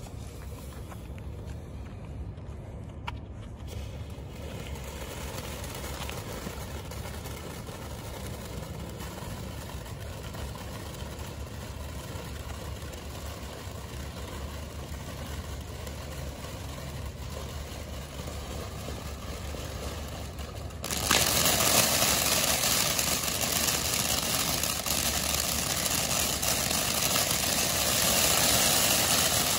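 Smoking Alien 'Toon Town' 500-gram firework fountain spraying sparks with a steady rushing hiss. About 21 seconds in it suddenly grows much louder and brighter as a bigger spray kicks in.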